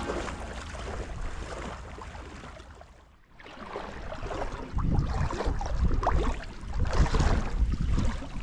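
Outdoor noise of wind on the microphone over water. It fades to a brief lull about three seconds in, then comes back louder with a low rumbling from about halfway.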